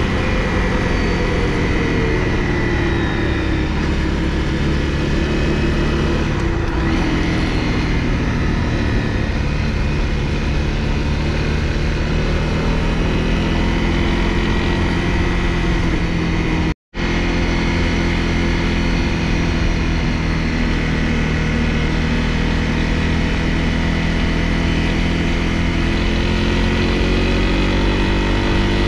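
Honda CRF250L's single-cylinder four-stroke engine running steadily under the rider on the move, its pitch easing down a few seconds in and rising again near the end. The sound cuts out for a split second about two-thirds through.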